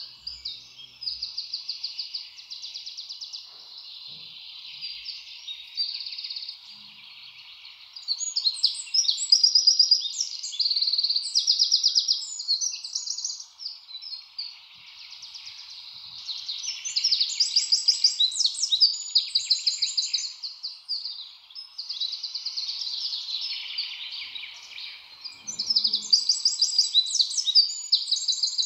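Small birds chirping and trilling in a dense, overlapping chorus of rapid high chirps that swell and fade in waves.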